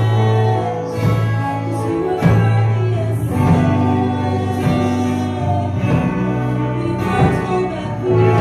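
Live worship music: a band plays sustained chords over a steady low bass note while voices sing.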